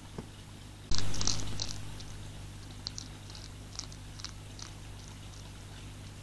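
Hedgehog feeding at a food tray. About a second in there is a loud, sudden snuffling burst that fades over about a second, followed by a few scattered small crunching clicks.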